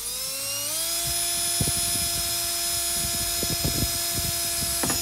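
Cordless drill boring a screw hole up through a plastic car bumper lip: the motor whine climbs in pitch, steps up about half a second in, holds steady, then stops at the very end. A few dull knocks sound under it.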